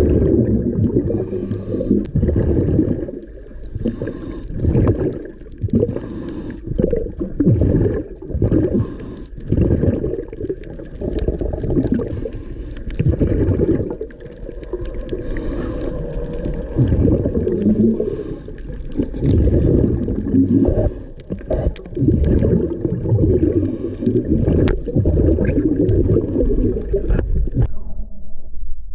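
Scuba diver breathing underwater through a regulator: exhaled bubbles gurgling in repeated bursts every few seconds, with brief lulls between breaths. It stops shortly before the end.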